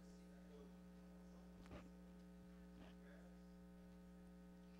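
Near silence: a steady low electrical hum, with one faint tap under two seconds in.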